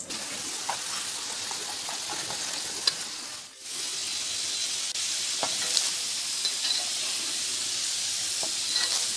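Potato fries deep-frying in hot oil in a wok: a steady sizzle, with a few sharp clicks of a metal slotted spoon. The sizzle drops out for a moment about three and a half seconds in.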